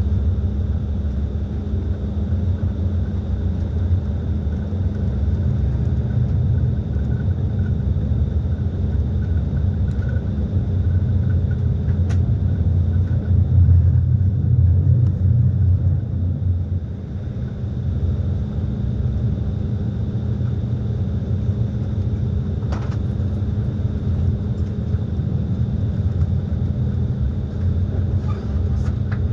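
Passenger train running along the track, heard from inside the carriage: a steady low rumble with a constant hum, swelling slightly about halfway through.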